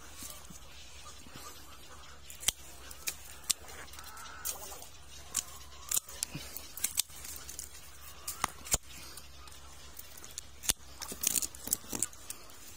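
Sharp, irregular snaps and clicks of dry twigs and thorny branches being cut and broken while clearing brush, about a dozen over the stretch, coming thickest near the end.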